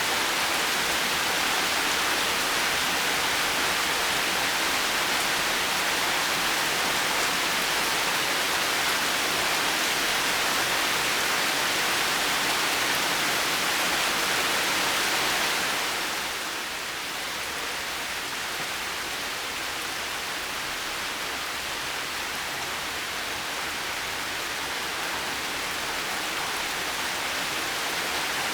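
Heavy rain falling steadily in a dense, even hiss. About halfway through it eases and softens, then slowly builds again.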